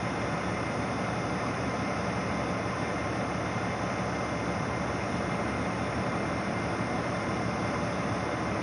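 Heavy diesel machinery running steadily, an even engine drone with a hiss over it and no change in level.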